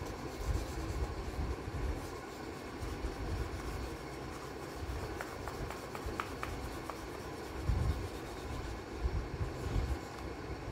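Light blue oil pastel scrubbed back and forth over drawing-book paper to colour in an area: a soft rubbing with low, dull thuds as the book is pressed, and a few small clicks a little past the middle.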